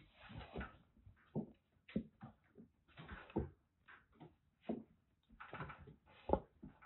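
Kittens play-wrestling: irregular soft thumps and scuffling of paws and bodies on a cage shelf.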